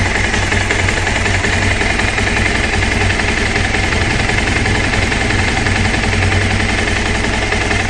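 Bajaj Pulsar 200 motorcycle's single-cylinder engine idling steadily, a loud, even rumble with no revving.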